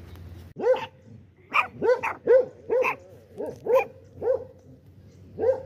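A dog barking repeatedly, about nine short barks in an uneven series.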